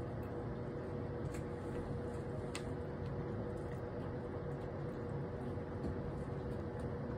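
Air purifier fan running steadily, a whooshing hum with a constant mid-pitched tone. A couple of faint ticks come about one and a half and two and a half seconds in.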